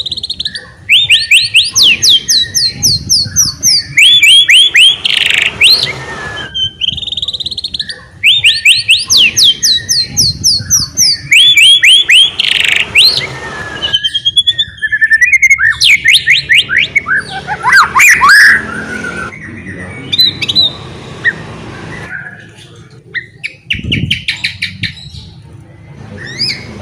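White-rumped shama (murai batu) in full, vigorous song: loud phrases made of fast runs of repeated sweeping notes, mixed with clear whistles and harsher notes, with a few short pauses between phrases.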